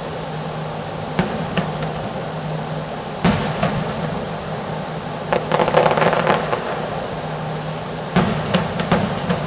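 Fireworks shells bursting with sharp booms, the loudest about three seconds in, and a dense flurry of crackling from about five to six and a half seconds. A steady low hum runs underneath.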